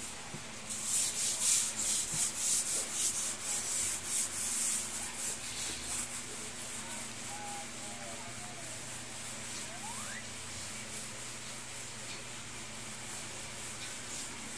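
Rapid back-and-forth hand scrubbing of a wood-look plank floor with a cloth pad, a run of hissy rubbing strokes that dies down after about six seconds.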